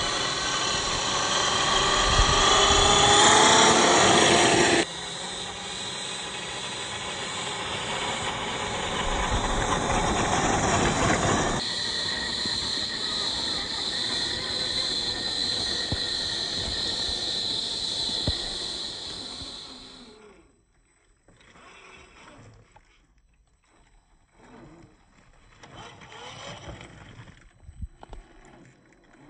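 Electric motor and gear drive of an RC4WD TF2 scale crawler, a brushed 550 21T motor, whining under throttle and rising in pitch over the first few seconds. The sound changes abruptly twice, then after about twenty seconds drops to faint, intermittent knocks and scrapes.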